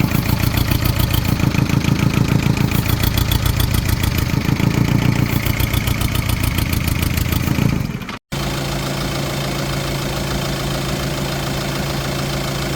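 VW Touran 2.0 TDI pumpe-düse four-cylinder diesel idling, with a fine, even pulsing for the first eight seconds or so. After a brief dropout about eight seconds in, it carries on idling more steadily.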